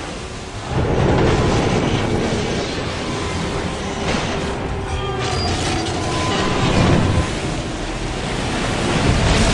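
Film sound effects of a huge tsunami wave rushing over land: a dense, steady roar of water that swells about a second in and stays loud.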